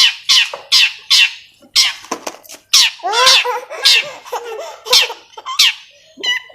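Long-tailed shrike (cendet) singing a rapid run of sharp notes that sweep steeply downward in pitch, about two a second, ending in a few short clipped notes. It is a lure recording, played to set silent or sluggish caged shrikes singing.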